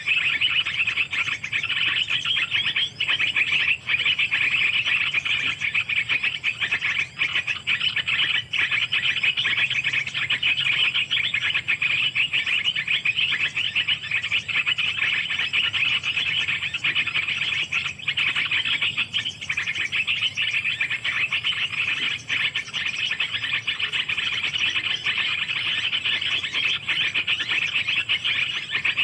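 A dense, steady high-pitched chirring chorus of calling animals that runs without a break.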